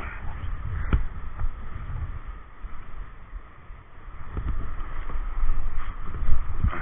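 Rushing whitewater around a kayak, with low wind rumble buffeting the microphone and a sharp knock about a second in; the noise dips briefly mid-way, then swells again.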